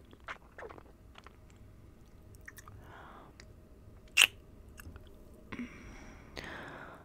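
Close-miked wet mouth sounds: scattered lip smacks and clicks with soft breaths, and one loud kiss-like pop about four seconds in.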